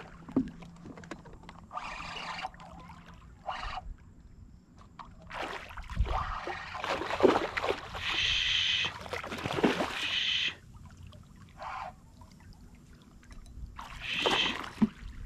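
A hooked fish thrashing and splashing at the water's surface in irregular bursts while being fought on rod and line, loudest from about six to ten seconds in and again near the end.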